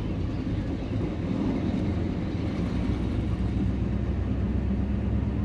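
Car engine running steadily with road noise, heard from inside a moving car: an even, low drone.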